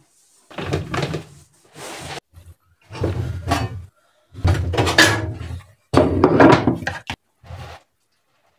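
Hot water being dispensed and poured, in about six separate gushes of roughly a second each, splashing into a plastic scoop and onto the steel top of a gas stove.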